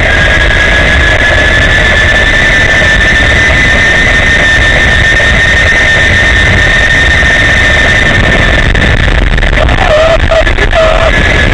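Zip-line trolley pulleys running fast along a steel cable: a steady high whine that rises slightly in pitch over the first few seconds and then holds, over a heavy rumble of wind on the microphone.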